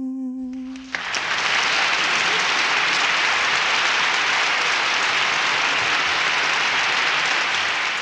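Crowd applauding steadily, breaking in about a second in just as a held sung note ends.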